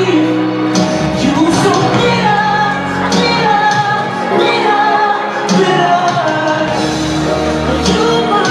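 Song with a singer's voice holding and bending notes over a backing track with steady bass notes and drum hits.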